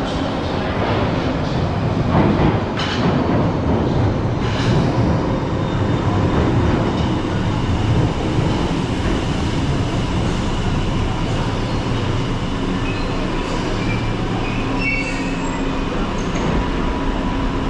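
London Underground 1973 Stock tube train running into the platform and braking: a dense rush of wheels and running gear on the rails, loudest a couple of seconds in. Thin whining tones come in over the second half as the train slows nearly to a stop.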